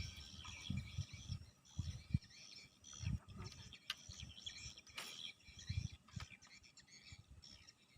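Birds chirping and insects trilling in a steady outdoor chorus. Irregular low thumps, the loudest sounds, come and go under it, and there is one sharp click about five seconds in.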